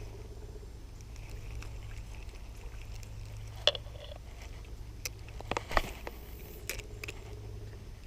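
A low steady hum with a handful of sharp clicks and knocks scattered through the middle, the loudest a little before four seconds in and just before six seconds in.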